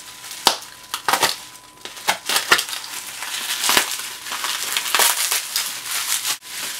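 Bubble wrap crinkling, with a string of sharp pops, as a Stanley knife slits open a bubble-wrapped parcel; the crackling thickens into a steady crinkle after about two and a half seconds.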